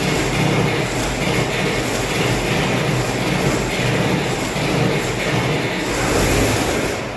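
Allis-Chalmers 180 pulling tractor's engine running loud through a straight vertical exhaust stack at its first start after modifications. It eases off slightly near the end.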